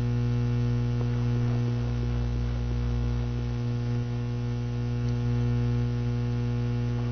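Steady electrical mains hum, a low buzz at one fixed pitch, with a few faint ticks in the first few seconds.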